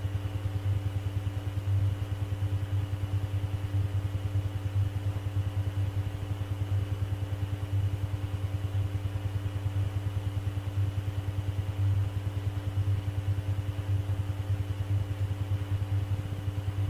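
Steady low electrical buzz with a fast flutter and a faint high whine over it: the background hum of an air traffic control radio channel recording while no one is transmitting.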